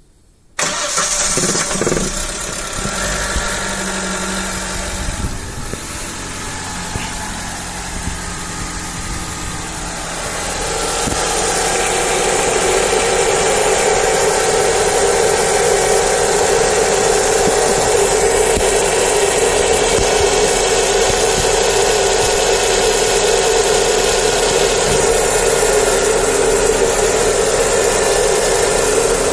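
Chevrolet Onix 1.0 engine cranked and catching about half a second in, then running steadily, just after its water pump, timing belt and tensioner were replaced. About ten seconds in a louder steady whirring comes up and holds.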